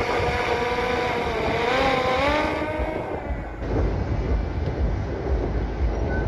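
DJI Air 2S drone's propellers whining at a steady pitch, then rising and wavering as the motors work against the wind, fading about three seconds in. After that, gusts of wind rumble on the microphone.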